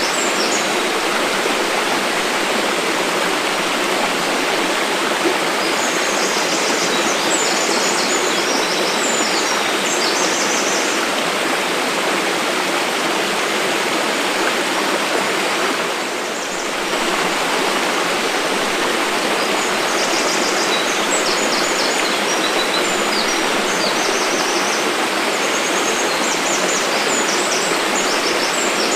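Mountain waterfall rushing steadily, dipping briefly near the middle. Rapid, high chirping comes and goes over it in two stretches.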